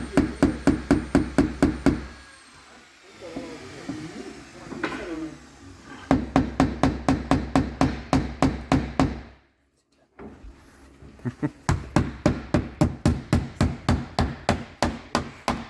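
Hammer tapping a blade in under the glazing bead of a PVC window frame to pop the bead out, in quick even taps about six a second. The taps come in three runs, with a quieter pause after about two seconds and a brief stop near the two-thirds mark.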